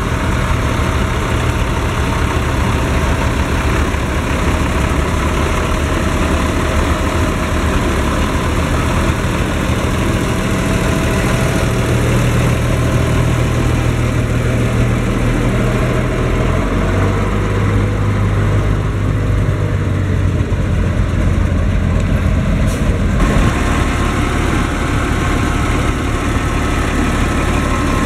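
Six-cylinder Liebherr diesel engine of a Schlüter Super Trac 2200 TVL-LS tractor idling steadily. Its low note shifts slightly a couple of times.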